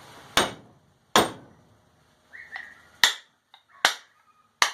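Five sharp knocks, a second or less apart, as the oiled wooden handle is driven into the eye of a forged steel hammer head.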